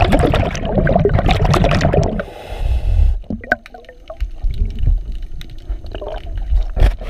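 Underwater bubbling and water churning heard by a camera below the surface: a dense crackling burst for about the first two seconds, then a low rumble, then quieter water with scattered clicks.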